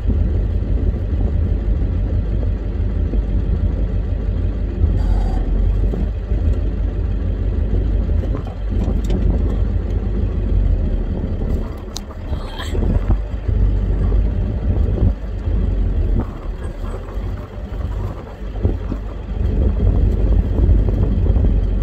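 Old pickup truck's engine running as it drives over rough ground, heard from inside the cab: a steady low drone with a few knocks and rattles, easing off and picking up again several times in the second half.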